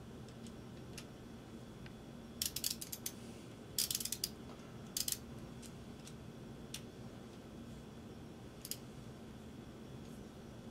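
Small metal hand tool clicking as it is worked in the hands to take a fine bit: a few quick runs of sharp clicks between about two and five seconds in, then single clicks now and then.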